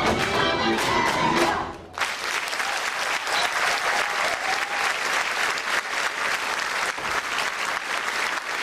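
Folk dance music ends about two seconds in; then the theatre audience breaks into steady applause.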